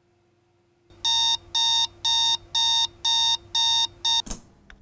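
Spartus digital alarm clock going off: a run of seven identical electronic beeps, about two a second, starting about a second in. The last beep is cut short near the end, with a single knock as it is shut off.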